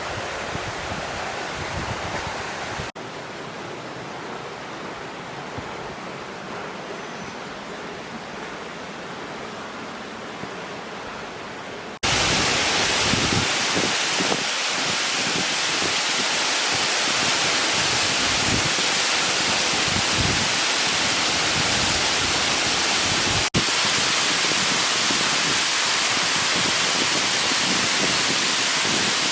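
Waterfall and mountain stream rushing, a steady wash of water noise. It changes abruptly: a little quieter about three seconds in, then suddenly much louder and fuller about twelve seconds in.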